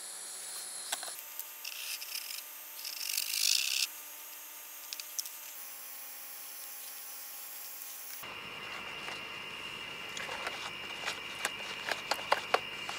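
Makeup being rubbed on: a scratchy rubbing, loudest about three seconds in. Under it is faint room tone that changes abruptly a few times, with light clicks and ticks in the last few seconds.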